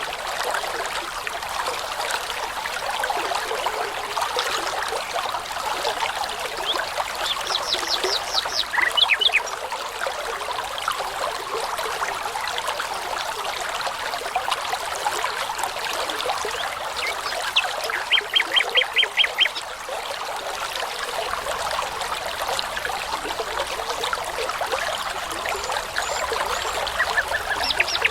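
A brook running steadily over stones, with songbirds singing over it: short runs of quickly repeated high notes about a third of the way in, again past the middle, and near the end.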